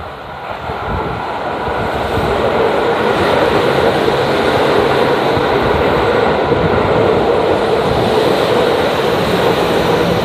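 A Keihan Main Line train running past the level crossing. The noise builds over the first two or three seconds and then holds steady and loud.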